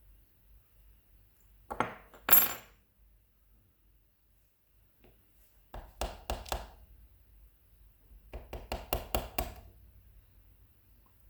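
Small metal lock parts clinking and rattling against a hard surface in three short clusters, the sharpest clink about two and a half seconds in: a DOM iX5 lock being taken apart by hand.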